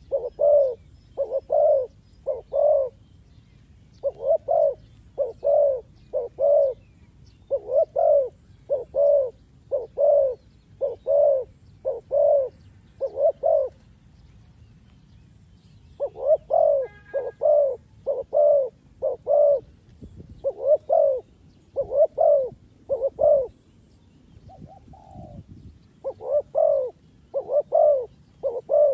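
Spotted dove cooing: short, mellow coos in quick groups of three or four, repeated phrase after phrase, with a pause of about two seconds near the middle.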